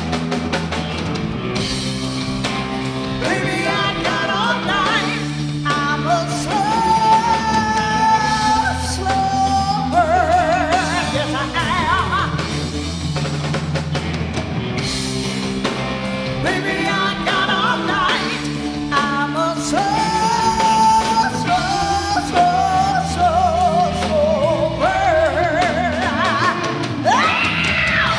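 Live blues band: a woman singing, holding long wavering notes, over electric guitar, bass guitar and drum kit.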